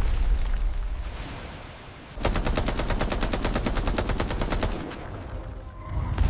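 A low rumble dying away, then a burst of rapid automatic gunfire about two and a half seconds long, roughly ten shots a second, which fades out.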